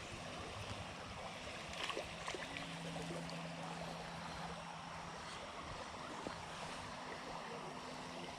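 Creek water running steadily, with a few faint clicks about two seconds in.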